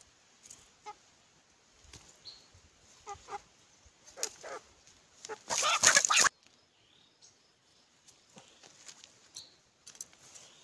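Several short animal cries, then a loud hissing scuffle about six seconds in, from a snared civet struggling and lashing out as it is handled.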